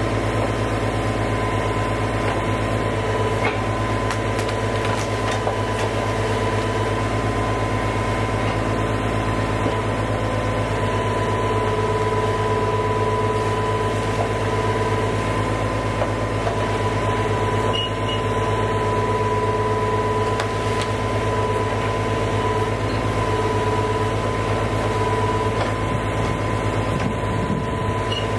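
Engine running steadily at a constant speed throughout, with a steady whine over its low hum.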